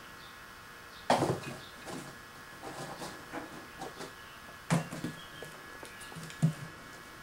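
Siamese kitten's paws thumping and scratching on a large cardboard box: a sharp knock about a second in, light scattered scratches, and two more thumps in the second half as it gets up onto the box.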